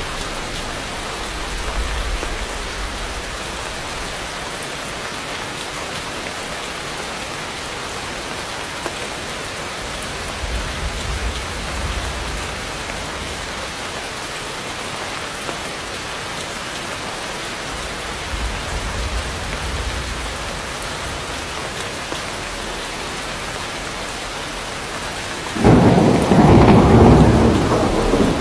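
Heavy rain falling steadily on dense tropical forest foliage, with low rumbles of thunder a few times. A loud clap of thunder breaks in sharply about three seconds before the end and rolls on for a couple of seconds.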